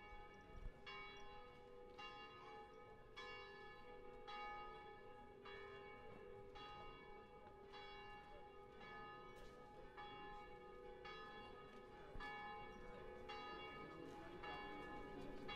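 A bell tolling faintly, struck about once a second, each stroke ringing on into the next over a steady lingering hum.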